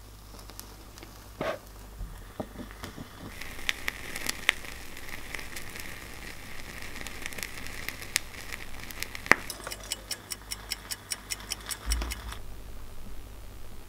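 Self-lighting charcoal incense disc catching light: a fizzing hiss with rapid crackling pops as the ignition spreads across it, turning near the end into a run of evenly spaced ticks before it stops suddenly. A light knock about a second and a half in.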